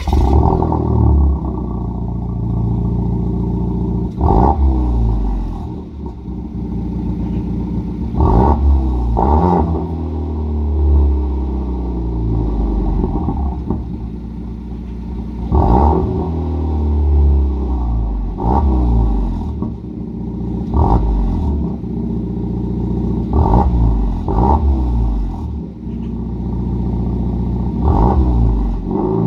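Volvo V40 T3's 1.5-litre turbocharged four-cylinder (B4154T4) running through a muffler-delete stainless exhaust with twin 4-inch tailpipes: it fires on a hot start right at the beginning and idles, blipped about nine times, each rev rising and falling quickly.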